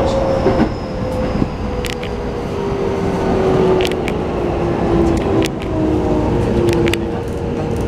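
Keikyu New 1000 series train's Mitsubishi IGBT-VVVF inverter, heard from inside the car over the rumble of wheels on rail. It whines in several tones that slowly fall in pitch as the train slows for the next station, with a few sharp clicks.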